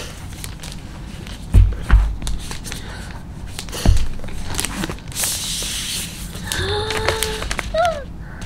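A laptop and its cardboard packaging being handled: a few dull thumps as it is lifted and set down in the box, and a soft rustle as its protective wrap slides. Near the end a woman gives a short hummed 'mm' and a brief vocal sound.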